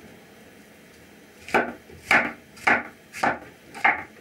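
Large kitchen knife chopping sliced mushrooms finely on a cutting board: five evenly spaced chops, a little more than half a second apart, starting about a second and a half in.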